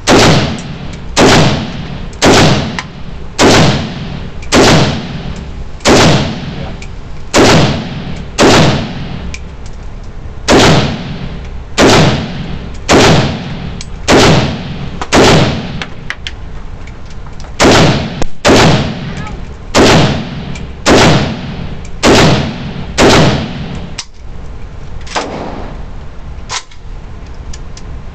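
AK-pattern rifle firing single shots at about one a second, around twenty in all, each a sharp crack with an echoing tail, with a short pause about two thirds of the way in and two fainter shots near the end.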